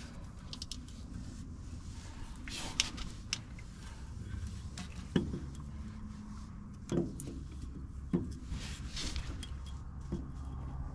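Spin-on oil filter being turned by hand onto its mount on a Cummins ISX15 engine: rubbing and scraping of the canister with several sharp knocks, over a low steady rumble.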